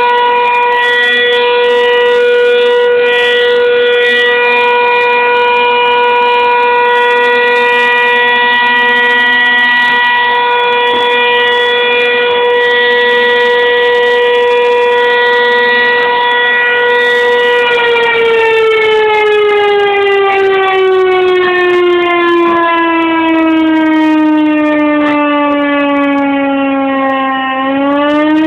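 A volunteer fire station's alarm siren sounding the call-out. It holds one steady, loud wail for about eighteen seconds, then slowly sinks in pitch over about ten seconds and starts rising again near the end.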